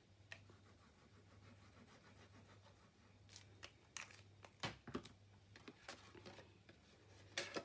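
Near silence over a low steady hum, broken by a few faint taps and short rustles of cardstock being handled on a cutting mat, with a soft thump a little past halfway.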